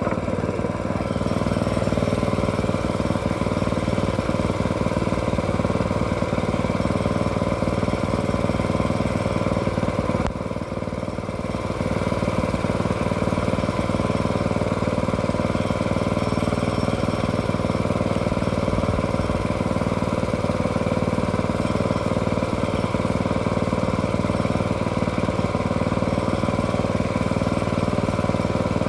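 Engine running steadily at an even speed, with a brief dip in level about ten seconds in.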